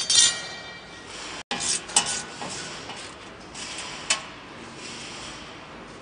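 Metal clinks, knocks and scraping as the steel side guard plates are handled and taken off a jute cutting machine. The loudest clatter comes right at the start, with sharp knocks about two seconds in and again about four seconds in.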